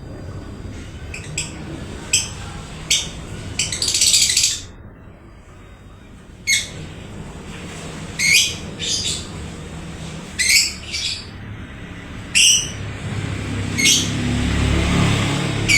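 Parblue lovebird giving short, shrill chirps, about a dozen scattered irregularly, with a longer harsh burst about four seconds in.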